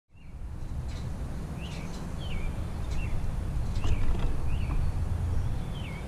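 A songbird calling repeatedly, short slurred notes that dip and rise, about one every two-thirds of a second, over a steady low rumble, with a few light ticks in between.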